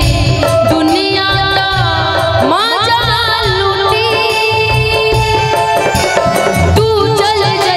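A woman singing a Bhojpuri stage song into a microphone over live band accompaniment, with a steady drum beat and keyboard. Her voice wavers and glides between notes, sweeping upward about two and a half seconds in.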